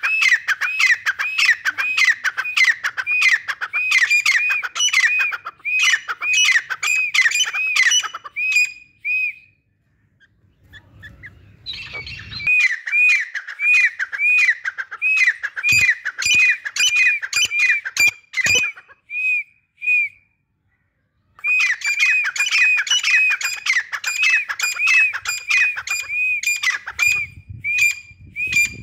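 Grey francolin calling: a loud, fast series of repeated shrill notes, about two a second, in three bouts with short pauses between.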